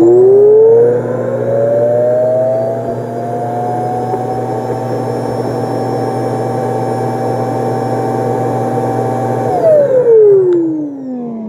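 Roomba auto-empty Clean Base's suction motor emptying the robot's bin: it spins up with a rising whine over the first few seconds, runs steadily and loudly, then winds down with a falling whine about ten seconds in.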